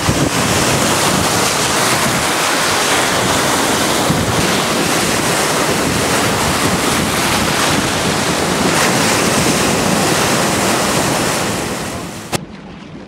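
Loud, steady rush of breaking surf mixed with wind buffeting the microphone, which cuts off suddenly near the end.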